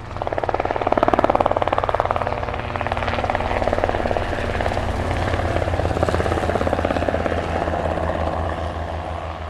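Helicopter passing, its rotor blades chopping rapidly over a steady low engine hum. It swells in at the start and begins to fade near the end.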